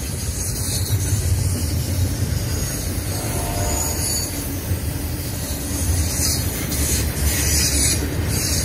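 CN double-stack intermodal train's well cars rolling past: a steady rumble of steel wheels on the rail with a hiss of steel on steel above it.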